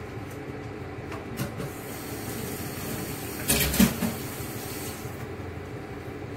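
Steady low rumble and hum in a kitchen, with a short clatter of sharp knocks about three and a half seconds in.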